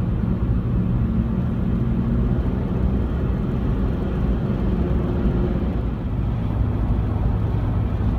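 Steady road and engine noise heard inside a car's cabin while cruising on a highway, a constant low rumble with a faint hum.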